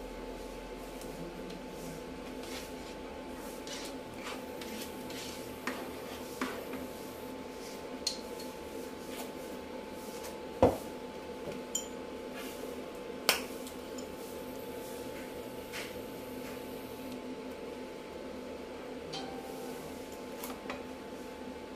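Kitchen clatter: scattered clinks and knocks of dishes, pots or utensils being handled, the two sharpest about eleven and thirteen seconds in, over a steady background hum.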